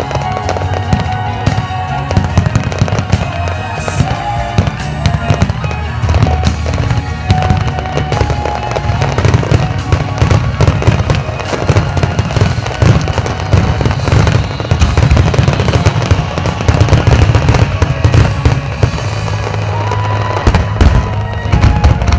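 Aerial fireworks bursting in a dense, continuous barrage of booms and crackling pops, with music playing underneath.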